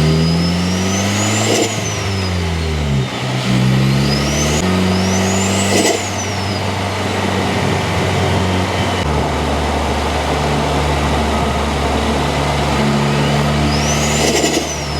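Ford Focus ST accelerating hard, its engine note climbing and breaking off. A high turbo whistle rises and then falls away several times as the turbo spools up and drops off.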